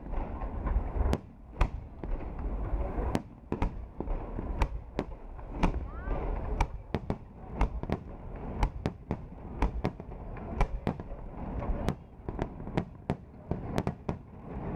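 Aerial fireworks shells bursting in an irregular barrage of sharp bangs, about two a second, over a steady background rumble.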